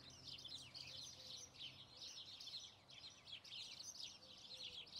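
Faint birdsong, a continuous stream of quick high chirps and trills.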